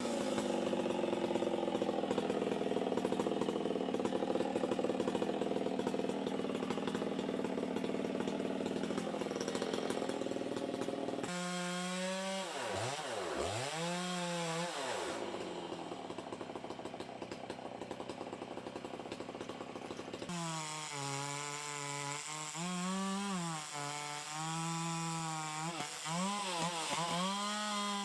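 Chainsaw cutting timber: a long steady run, then about eleven seconds in the engine pitch dips and climbs as the throttle is eased and opened again. It settles, then near the end runs high with its pitch rising and falling repeatedly as the cut loads and unloads it.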